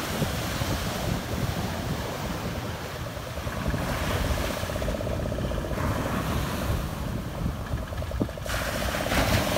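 Surf breaking and washing up a sandy shore, with wind buffeting the microphone. A faint, steady boat-engine drone comes in about four seconds in.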